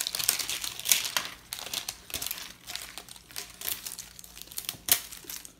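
Clear plastic packaging crinkling and crackling as it is handled and pulled free of a perfume tin, in irregular crackles that are thickest at first and thin out, with one sharp click near the end.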